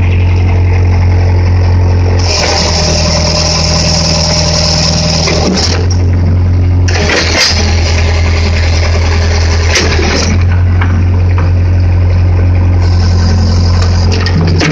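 Case 580D backhoe's diesel engine running steadily while it digs, with a high hiss from the hydraulics coming in three times for a few seconds each as the controls are worked.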